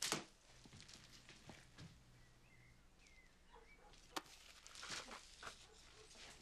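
Quiet kitchen handling sounds: a sharp knock at the start, a few light clicks, then a plastic bag of sliced bread being handled, rustling briefly about five seconds in.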